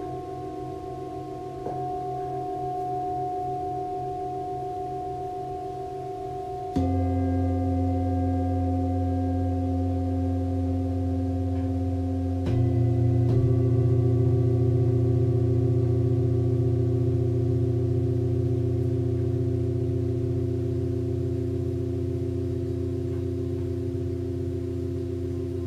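A set of singing bowls tuned to the seven chakras, struck one after another. Each strike adds a new ringing tone over the ones still sounding, and the low tones pulse slowly as they beat. There is a light strike about two seconds in, a louder one at about seven seconds, and two more close together at about twelve and thirteen seconds.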